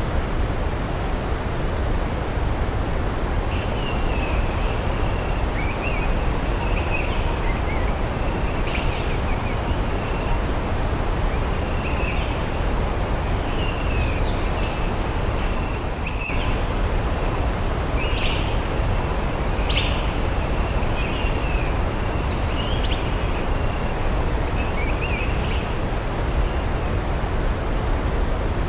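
Steady rushing of a waterfall, even and unchanging. Distant birds chirp over it in short, scattered calls, starting a few seconds in and dying away near the end.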